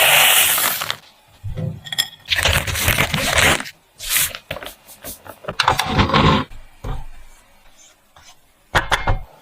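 Kitchen utensil sounds from making mochi: a series of short scraping and clinking bursts with pauses between, the loudest in the first second.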